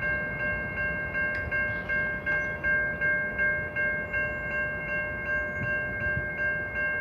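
Railroad crossing bell ringing steadily, about two strikes a second, over a low rumble.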